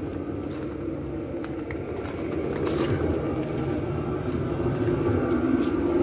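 Chinese diesel air heater running with a steady low hum, which grows louder in the second half as the heater ramps up its output against the cold air let in.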